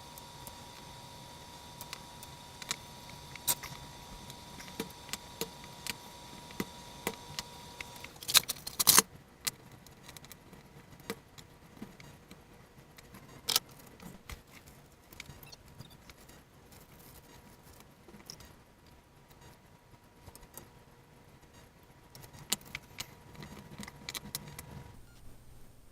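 Small kit parts and hardware clicking and clinking as they are handled, in scattered irregular clicks with a louder cluster of clinks about nine seconds in. A faint steady whine sits underneath for the first eight seconds.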